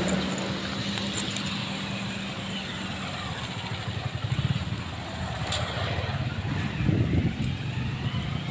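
Street traffic: a motor vehicle's steady engine hum fading away as it moves off, with low rumbling swelling again about seven seconds in.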